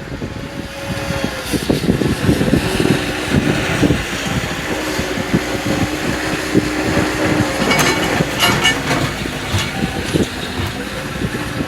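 Tractor engine running, growing louder over the first couple of seconds, with a short burst of clatter about eight seconds in.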